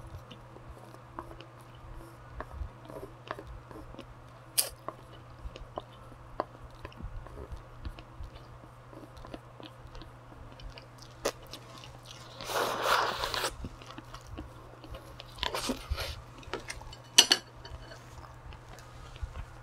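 Close-up eating sounds: chewing, with scattered small clicks of chopsticks scraping and tapping a plastic bowl. A noisy burst of about a second comes a little past the middle, and a few louder knocks follow as the bowl and chopsticks are set down on the table.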